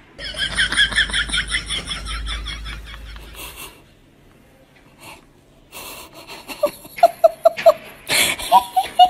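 Wheezy, high-pitched laughter: a rapid run of squeaky snickers for about three and a half seconds, then after a short lull a string of short, evenly spaced laughing pulses near the end.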